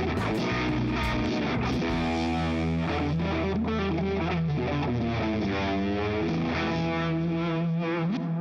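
Instrumental background music; the low bass note drops out near the end while the upper notes ring on.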